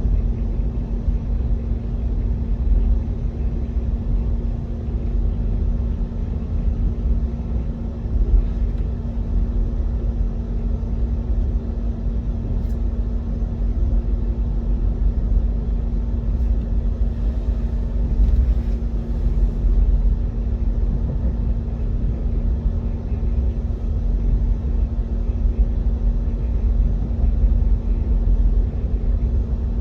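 Steady low rumble of a running vehicle with a constant mid-low hum and no break throughout.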